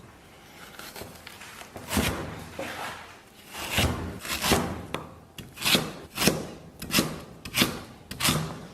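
Kitchen knife chopping fresh ginger into small bits on a wooden cutting board: uneven sharp chops, about one to two a second, starting about two seconds in, with some rasping of the blade on the board between them.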